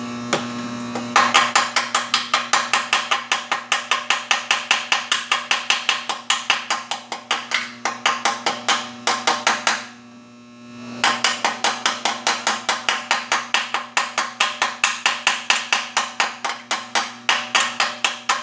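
Slag being knocked off a fresh stick weld on a stainless steel exhaust tube: rapid, even metal strikes, about five a second, in two runs of several seconds each with a short pause between them.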